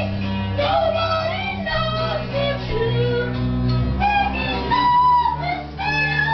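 A band playing live, with a high voice singing in wavering, sliding notes over sustained low bass notes and guitar; the recording is dull, with no high treble.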